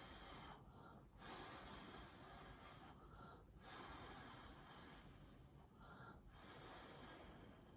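Faint, slow breathing close to the microphone, a breath about every two and a half seconds.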